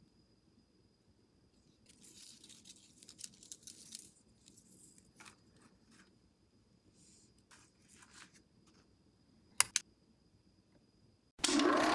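Rustling and light clicks of a small 8mm film reel and its film strip being handled, then two sharp clicks shortly before the end. In the last half second a film projector starts up and runs loudly and steadily.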